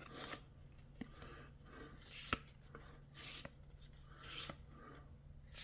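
Magic: The Gathering cards being flipped through by hand, one card sliding off the next in short swishes roughly once a second, with a sharp tick a little past two seconds in.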